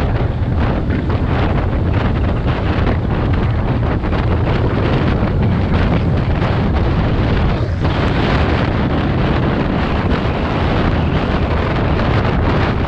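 Strong wind buffeting the microphone of a camera on a moving vehicle, over a steady low road-and-engine rumble.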